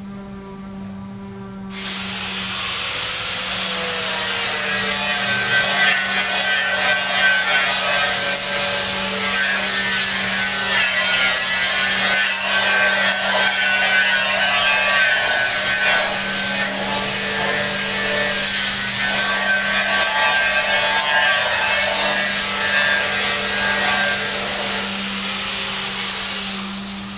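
A power tool running under load, cutting or grinding, with a high whine over a harsh rasping noise. It starts about two seconds in and stops near the end, over a steady low hum.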